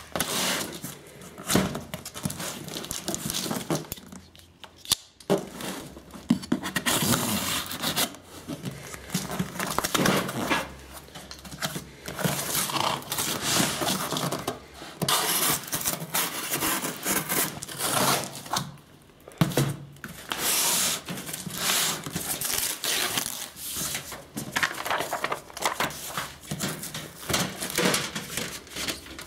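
Cardboard packaging and the thin sheet-steel parts of an IKEA Helmer drawer unit being handled while it is unboxed: irregular scraping and rustling with many sharp knocks and clicks. Near the end a steel panel is being handled.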